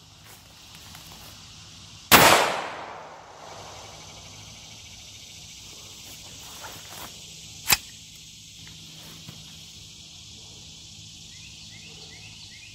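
A single pistol shot about two seconds in: a Hi-Point JCP .40 S&W firing a number 9 shotshell, with a short fading ring after the report. A much fainter sharp click follows near eight seconds, over a steady high buzz of insects.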